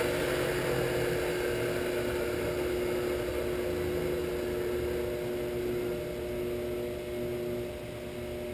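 Shopsmith 10ER headstock belt-driven by a Leeson 3/4 HP DC motor, running unloaded with a steady hum and a held tone. It grows quieter near the end as the controller's speed knob is turned down.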